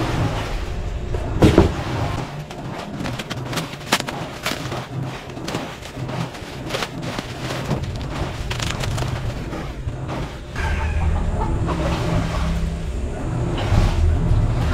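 Bubble wrap and plastic film crinkling and crackling as they are pulled off a white plastic dish drainer basket, with clicks and knocks of the rigid plastic being handled; one sharper knock about a second and a half in.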